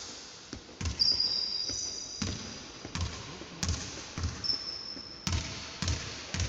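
A basketball bouncing on a hardwood court, about eight thuds at an uneven pace, echoing in a large hall. Short high squeaks, like basketball shoes on the wooden floor, come about a second in and again past the middle.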